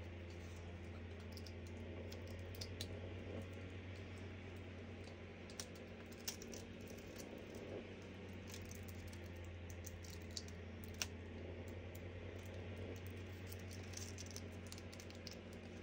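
Scattered small clicks and taps of hands handling card-making materials on a tabletop, over a steady low hum.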